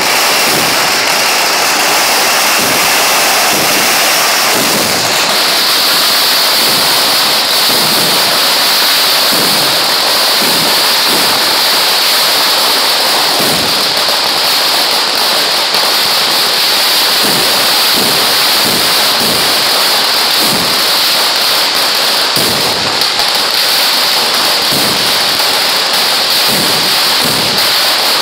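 Vedikettu fireworks: firecrackers bursting so fast that the cracks run together into a loud, unbroken crackle, with many deeper single bursts standing out through it.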